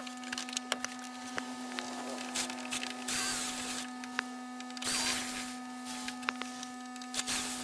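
Cordless drill-driver spinning in short bursts, twice for about a second each, about three and five seconds in, and briefly near the end, backing the screws out of a CRT television's plastic back cover. Sharp clicks of handling the screws and cover come between the bursts, over a steady low hum.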